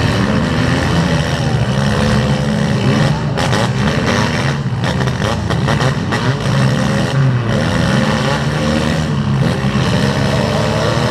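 Several demolition derby car engines with their exhaust systems removed, revving loudly at once, their pitch rising and falling.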